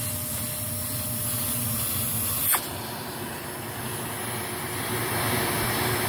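Hoover Z400 vacuum cleaner running with its hose wand sealed against a rubber-capped vacuum gauge, a steady rushing hiss. About two and a half seconds in, a short sharp pop as the wand is pulled free of the cap, and the airflow then runs open.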